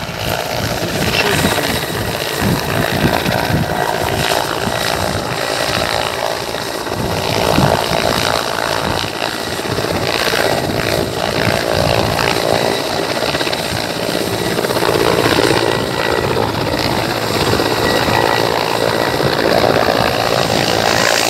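Helicopter running close by, its rotor and turbine noise loud and continuous. The rotor wash is whipping up the snow.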